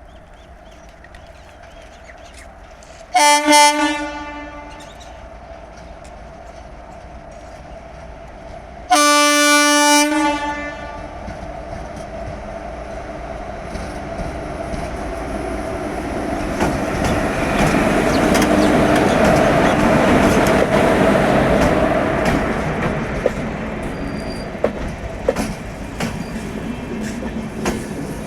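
WAP-4 electric locomotive's twin-tone horn sounding two blasts, a short one about three seconds in and a longer one about nine seconds in. The express then passes, its running noise swelling to a peak about twenty seconds in and easing off with wheel clicks over the rail joints.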